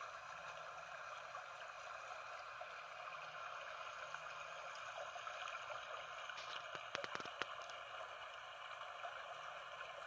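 Small woodland stream flowing over rocks, a faint, steady rush of water, with a few faint clicks about seven seconds in.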